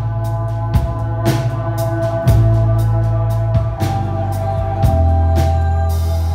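Live band playing: a drum kit keeps the beat under long held electric bass notes, with acoustic and electric guitars.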